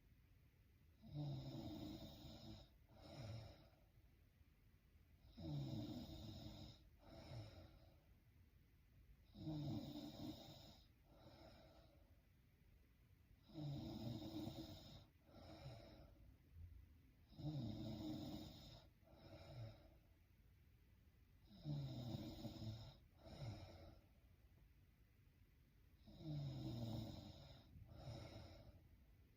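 A sleeping woman snoring faintly in a steady rhythm, about one breath every four seconds, each a longer snore followed by a shorter one.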